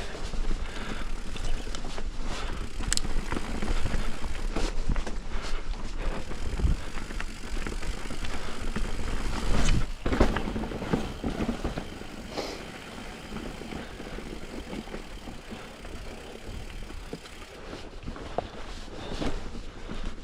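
Mountain bike riding along a dirt trail: tyre noise with frequent clicks and rattles from the bike, quieter from about two thirds of the way in.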